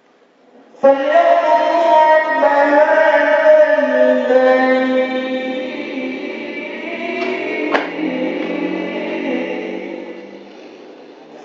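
A man's voice chanting a Quran recitation in the melodic tilawah style, amplified through a microphone: after a short pause, one long ornamented phrase begins about a second in and fades out near the end.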